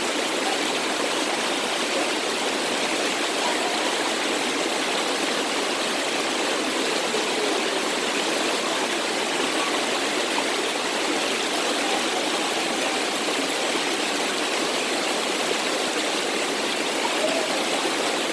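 Waterfall with a steady, even rush of falling water that does not change.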